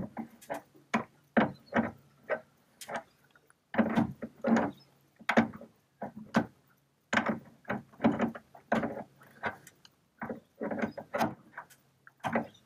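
Ratcheting spanner clicking as it tightens the steering cable's retaining nut on the outboard's tilt tube, in runs of quick clicks with short pauses between.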